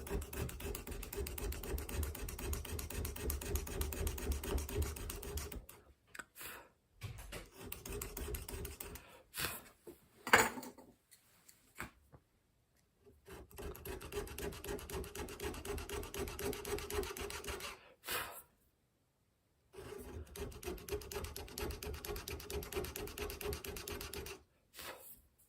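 Fast back-and-forth rasping strokes of a hand tool working metal or wood, in four bouts separated by pauses. A single sharp click about ten seconds in.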